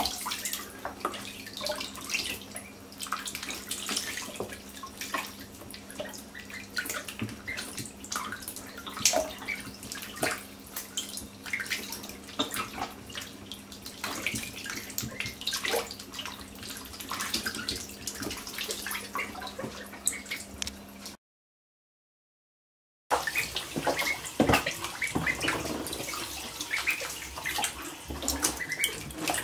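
Call ducklings paddling and dabbling in shallow bathtub water: a constant patter of small splashes and drips. The sound cuts out for about two seconds about two-thirds of the way through, then the splashing resumes.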